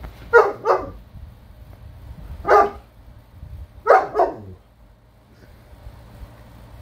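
German Shepherd barking, five barks: a quick pair at the start, a single bark about two and a half seconds in, and another quick pair near four seconds.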